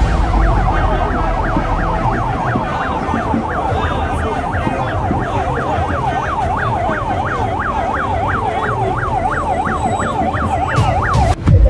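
Electronic police siren in yelp mode, its pitch sweeping quickly up and down a little over twice a second over a steady low background din; it cuts off near the end.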